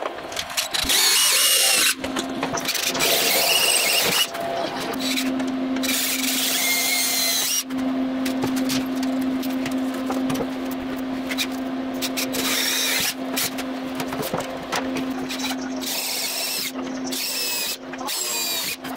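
Cordless drill boring holes through aluminum sheet flanges. The motor whines steadily while the bit squeals as it cuts, in several runs with short stops between holes.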